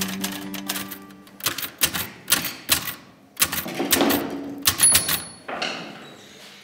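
Manual typewriter being typed on: quick clusters of sharp key strikes, with a brief high ring about five seconds in.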